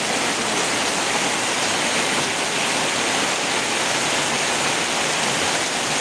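Rain falling steadily, an even, unbroken hiss of a downpour.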